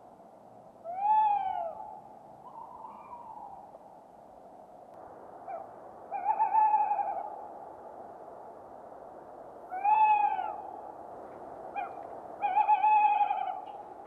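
An owl hooting: four separate calls a few seconds apart, some short and arching in pitch, others longer and held, over a faint steady background hiss.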